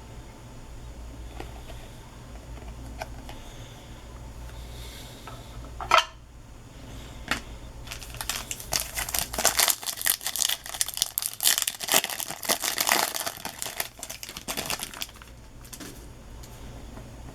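Trading-card pack wrapper being handled and torn open: a sharp snap about six seconds in, then several seconds of dense crinkling and tearing.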